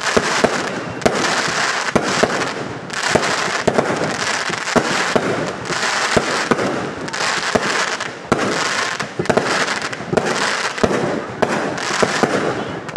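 Fireworks going off in rapid succession: a continuous dense crackle broken by many sharp bangs.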